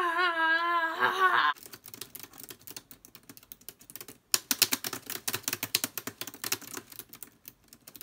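Fingers typing fast on an HP laptop keyboard: a dense run of key clicks that gets harder and louder a little past halfway, as the keys are pounded. It opens with a woman's drawn-out, wavering vocal sound lasting about a second and a half.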